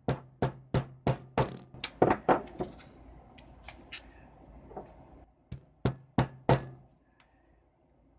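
A quick series of sharp knocks on a hard surface, about three a second for the first three seconds, then four more a little past halfway, as the pieces of a ribbon-cable connector are fitted and pressed back together by hand.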